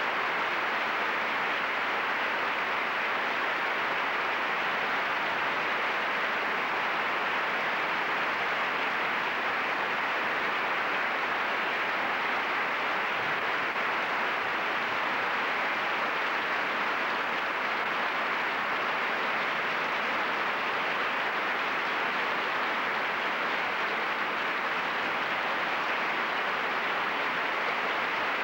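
Steady, even hiss of recording noise with no music audible, typical of a worn analogue video tape transfer.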